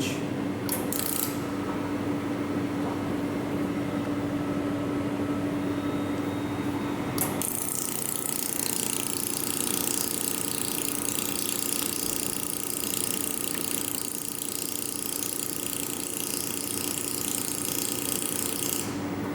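Mould laser welder firing under foot-switch control: after a few sharp clicks over a steady machine hum, a dense run of rapid ticking and crackling pulses sets in about seven seconds in and keeps on steadily.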